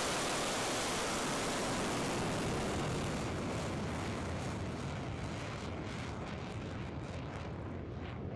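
Ballistic missile's rocket motor at launch from a railway car: a loud continuous rushing blast that slowly fades and turns crackly as the missile climbs away.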